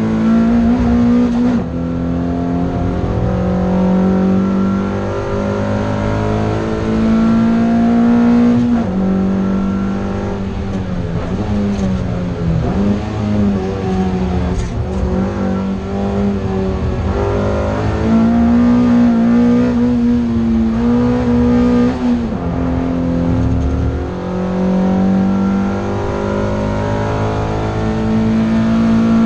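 Toyota MR2 race car's engine at racing speed, heard from inside the cabin. Its pitch climbs and falls repeatedly, with short breaks at the gear changes.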